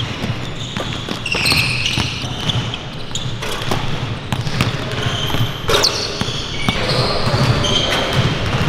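Several basketballs bouncing on a hardwood court in a large hall, with repeated irregular thuds and short sneaker squeaks.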